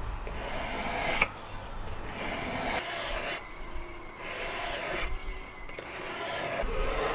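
Coarse 180-grit whetstone on a KKMoon fixed-angle sharpener being stroked along a steel kitchen knife blade: a gritty rasping scrape, repeated about once every second and a half, as the coarse stone grinds in a new edge.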